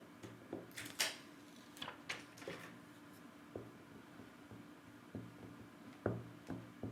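Hands working a plastic screen-protector alignment frame on a smartphone: scattered light clicks and taps with a few brief plastic rustles, and a sharper knock about six seconds in.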